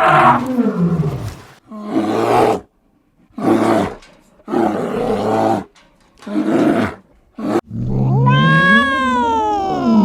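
Cat calls: a falling growl, then a run of five short harsh calls, then one long drawn-out meow that rises and falls in pitch near the end.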